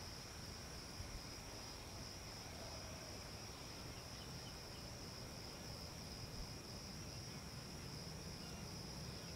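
Crickets trilling steadily at a high pitch, faint, over a low, even rumble of outdoor background noise.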